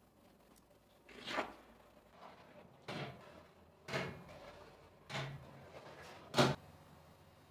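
Metal baking trays sliding along an oven's wire rack rails, five scraping clunks about one to one and a half seconds apart, the last the loudest.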